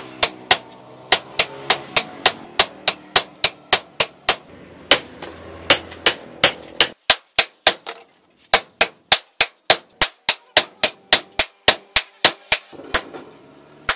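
Sledgehammer blows on a red-hot steel cleaver blade over an anvil, about three a second, with a metallic ring between blows. The striking pauses briefly about seven seconds in, resumes, and stops near the end.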